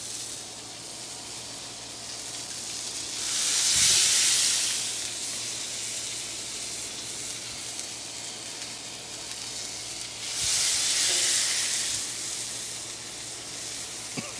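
Birria tacos frying on a hot Blackstone flat-top griddle: a steady sizzle, with two louder surges of hissing about three and ten seconds in, each lasting a second or two.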